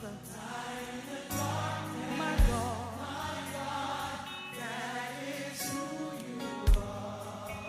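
Gospel worship music with a choir singing, and two deep bass hits that stand out about two and a half seconds in and again near the end.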